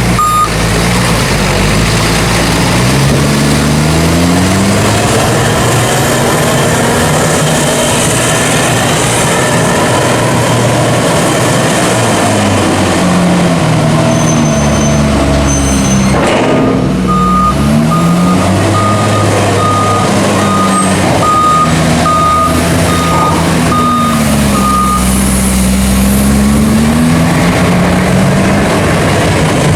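Diesel engine of a large bucket loader revving up and down as it shifts and pushes chopped maize on the silage clamp. A reversing alarm beeps at the very start and again for several seconds past the middle.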